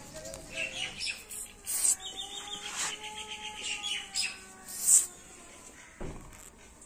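Several short hissing bursts from an aerosol wound-spray can sprayed onto a dog's paw wound, the loudest about five seconds in. Birds chirp in the background.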